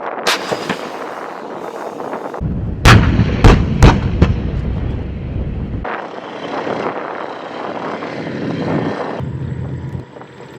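Heavy large-calibre guns firing: one shot just after the start, then three loud shots in quick succession about three to four seconds in, with continuing noise between the shots.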